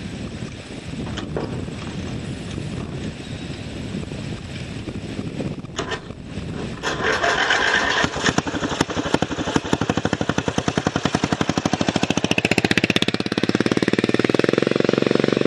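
Racing lawnmower's engine running through a loud aftermarket exhaust: fairly quiet at first, then much louder from about seven seconds in as the mower approaches at speed, with rapid, even firing pulses.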